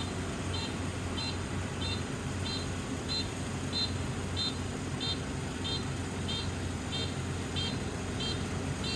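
Combine harvester's engine running steadily, with a machine warning beeper sounding short high beeps evenly, about one and a half a second.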